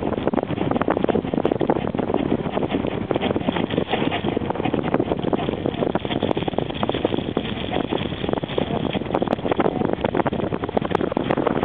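Steady road and wind noise inside a moving car, a dense rushing rumble with a constant rough crackle.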